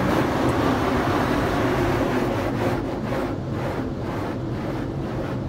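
Water jets from a WashTec SoftCare 2 Pro car wash gantry spraying over the car, heard from inside the cabin as a steady rushing hiss. The spray is heaviest at first and eases off after about two and a half seconds.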